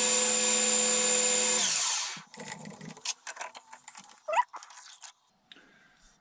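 Metal lathe running with a steady whine from its drive, then switched off and spinning down to a stop about two seconds in. A scatter of light metallic clicks and knocks follows.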